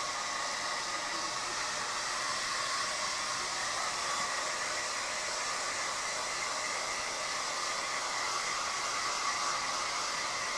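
Hand-held hair dryer running steadily while blow-drying a wet dog: an even rush of air with a faint steady whine.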